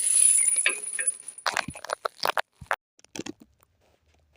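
Metal parts and tools clinking and rattling: a hiss with a thin high whine in the first second, then a quick run of sharp clinks before it goes quiet.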